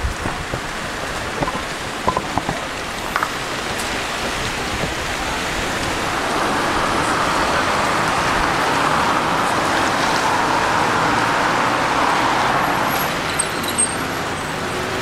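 Outdoor street noise with traffic: a vehicle passing swells up about six seconds in and fades away a few seconds later. A few light clicks come in the first seconds.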